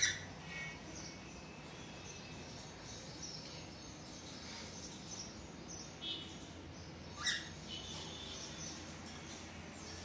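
Cockatiels chirping: a sharp upswept call right at the start and another about seven seconds in, with shorter chirps between and faint high chatter throughout.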